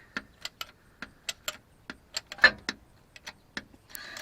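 Irregular metal clicks and clinks from a hydraulic jack and steel jack stand as a pickup truck is being jacked up, about three or four a second, with one louder clank a little past halfway.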